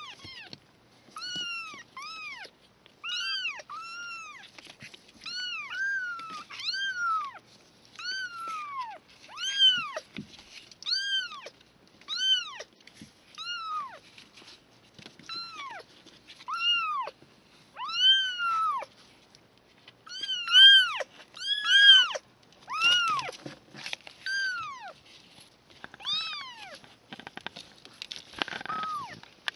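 Three-week-old kittens mewing, a steady string of short high cries, each rising and falling in pitch, about one a second.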